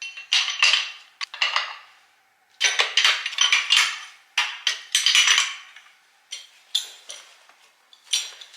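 Loose metal engine parts being handled during the teardown of a 6.0 LS V8, making clusters of sharp clinks and clatters with short metallic ringing. There are brief pauses about two seconds in and again about six seconds in.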